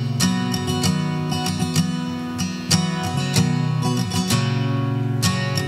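Acoustic guitar strummed in a steady rhythm, chords ringing on between strokes.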